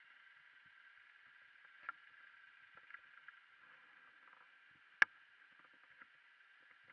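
Faint steady hiss with a few light clicks and knocks scattered through it. The loudest is a single sharp click about five seconds in.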